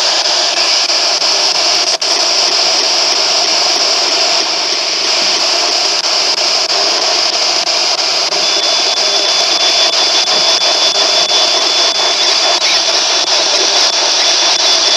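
Handheld radio used as a spirit box, sweeping rapidly through stations and giving out loud, steady static hiss. A thin, steady high whistle joins the hiss about halfway through.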